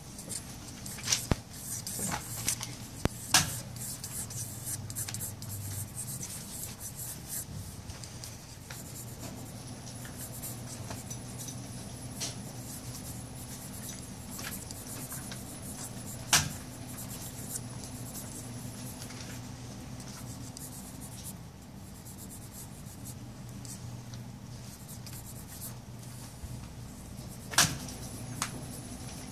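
Graphite pencil scratching and rubbing on a card's surface as lines are sketched. There are a few sharp knocks, several in the first few seconds, a loud one about sixteen seconds in and another near the end.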